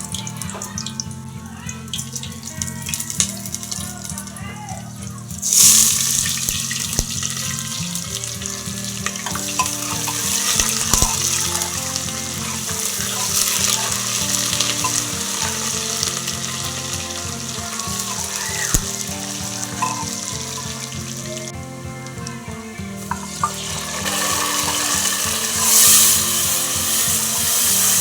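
Background music with held notes, joined about five seconds in by a steady hiss that stays to the end, briefly dropping away a few seconds before the end and then coming back louder.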